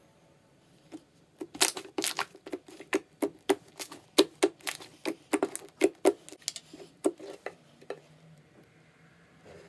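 Homemade no-glue slime being squeezed and kneaded by hand, giving a quick, uneven run of sticky clicks and pops, about four a second, that stops near the end.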